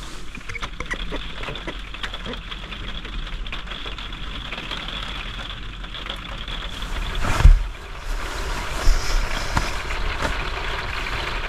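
Steady rain falling, a dense hiss of many small drops over a low rumble, with one brief loud rush about seven and a half seconds in.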